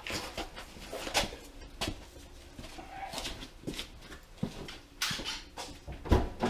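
Scattered knocks and clicks of hand tools and parts at work on the car's suspension, irregular rather than a steady ratchet rhythm.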